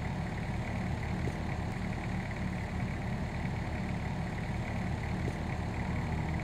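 Compact excavator's diesel engine idling steadily with a low, even drone.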